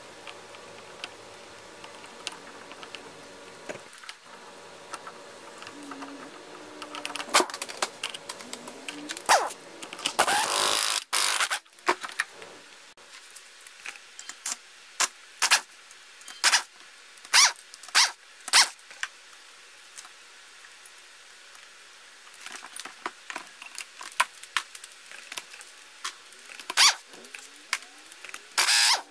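Metal tools and outboard engine parts clinking and clattering: sharp metallic clicks come in irregular runs, up to about one a second, as the flywheel and ignition parts are taken off the powerhead. About ten seconds in there is a loud burst of rough noise lasting about a second.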